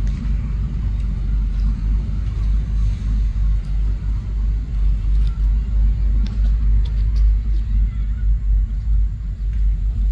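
A low, unsteady rumble that rises and falls throughout.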